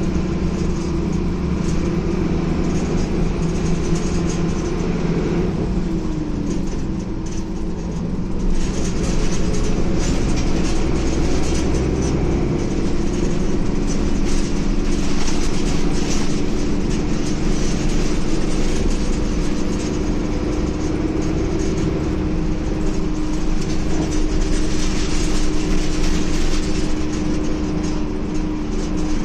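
Ikarus E94.53 intercity bus heard from inside the passenger saloon while underway: steady engine and road noise. It drops briefly about six seconds in, then comes back louder as the bus pulls on again.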